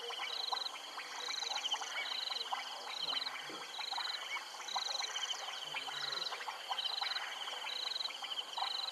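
A chorus of frogs calling at a waterhole: two high, pulsed trills alternate steadily, each coming back a little faster than once a second, over scattered short chirps and clicks.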